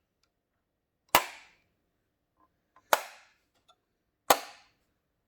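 Doors of a Biante diecast model Holden Commodore being clicked shut one after another: three sharp clicks about a second and a half apart, with faint handling ticks between them.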